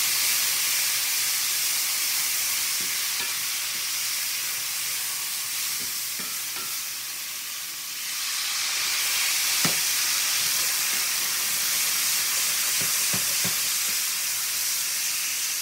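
Mushrooms sizzling in a hot cast iron skillet as wine is poured in to deglaze, while a wooden spatula stirs and scrapes the pan bottom. The sizzle eases a little, then swells again about eight seconds in as more wine hits the pan. A few sharp scrapes of the spatula against the iron come near the end.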